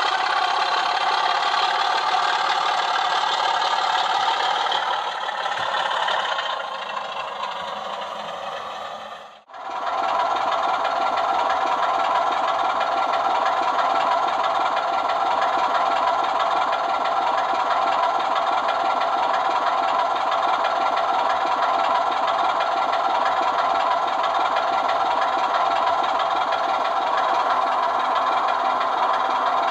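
Sound decoder in a Sutton's Loco Works Class 24 model locomotive playing a recorded Sulzer diesel engine sound through its small on-board speaker, running steadily. The sound fades a little after about five seconds, cuts out for a moment about nine and a half seconds in, then comes back steady.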